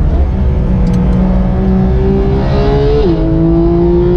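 Porsche 991.2 GT3's naturally aspirated 4.0-litre flat-six heard from inside the cabin under hard acceleration on track. The pitch climbs, drops sharply at an upshift about three seconds in, then climbs again.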